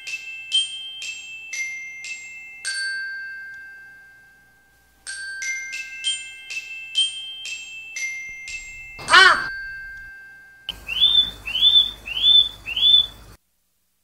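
Intro jingle of ringing glockenspiel-like notes in two short phrases. About nine seconds in comes a quick falling whistle-like swoop, then four short rising chirps like a small bird's call over a faint hiss.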